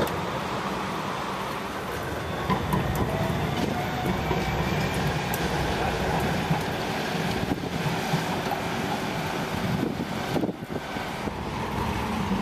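Street traffic noise as a light-rail tram rolls across an intersection: a steady rumble with a faint whine, and a brief drop in level about ten seconds in.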